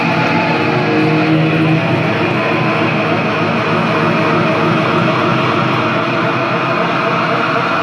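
Loud live rock concert sound from an electric guitar solo, with a few held distorted notes in the first two seconds and then a dense, noisy wash, recorded from the crowd on a phone.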